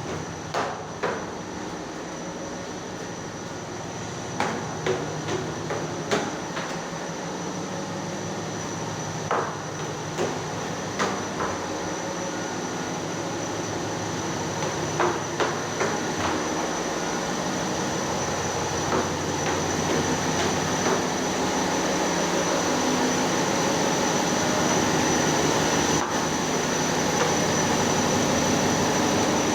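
Steady machinery noise of a passenger ship with a constant high whine, growing gradually louder. It is broken by a dozen or so sharp knocks, mostly in the first half.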